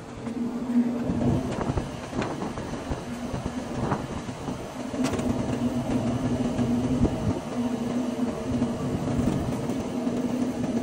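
Wire fan guard on a Trane condenser unit being handled and fitted back over the fan, giving a few sharp metal clicks and knocks, over a steady mechanical hum that becomes continuous about halfway through.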